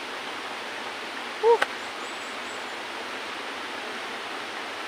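Shallow river running over rocks, a steady rushing. About a second and a half in, a brief voiced sound and a single click.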